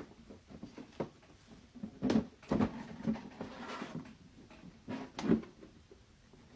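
Hard plastic parts of a rice dispenser knocking and clicking as they are pushed and fitted together. The knocks come in small clusters, with the loudest about two seconds in and again about five seconds in.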